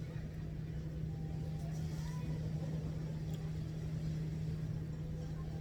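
A steady low hum over a rumbling background, unchanging throughout.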